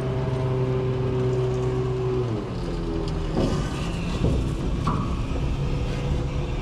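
Scania R580 truck's V8 diesel engine running steadily; about two seconds in the revs drop and it settles to a lower speed. A couple of short knocks sound over it.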